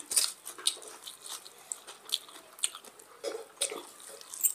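Chewing and wet mouth smacks of people eating rice and mutton curry with their hands, close to the microphone, with fingers squishing the rice: a string of short, irregular clicks.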